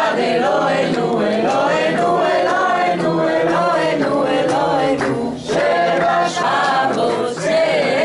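A table of men and women singing a Passover seder song together from their Haggadahs, many voices in one continuous chant-like melody.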